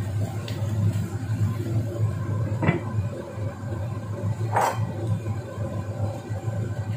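Choy sum stir-frying in a wok, with a steady low hum and sizzle under it. A spatula stirs at first, and a glass lid goes onto the wok with a clink near the middle; a second, sharper knock follows about two seconds later.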